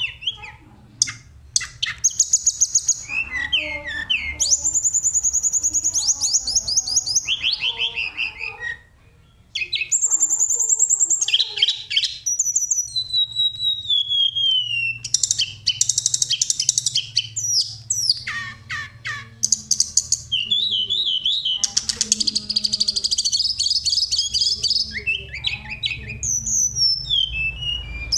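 Hill blue flycatcher (tledekan gunung) song from a bird-tutoring master recording: a varied run of rapid high trills, buzzy phrases and falling whistled notes, with a brief pause about nine seconds in.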